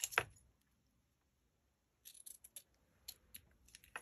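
Faint, scattered clicks and light rustles of fabric scissors and a strip of lace being handled, with a quiet stretch of about a second and a half in the middle.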